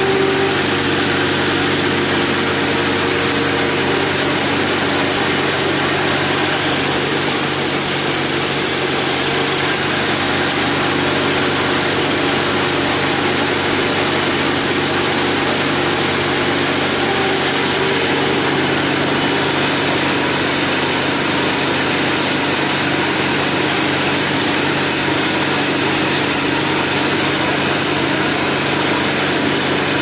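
Small gasoline engines of a skid steer and its front-mounted snowblower running steadily, loud and continuous, as the blower works through snow. The snowblower has its own 13 hp Honda-clone engine.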